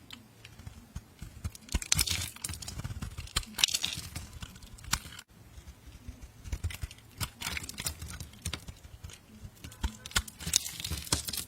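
A blade cutting and scraping through soap, making crisp, crackling strokes that come in irregular bursts among small clicks.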